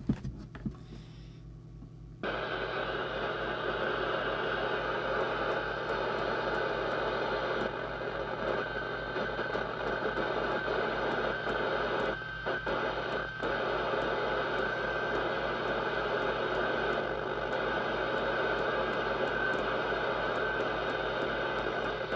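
Lowe TX40 UK FM CB radio's speaker hissing with receiver static from the aerial. The static comes on suddenly about two seconds in and drops out briefly twice near the middle. A steady low hum runs underneath.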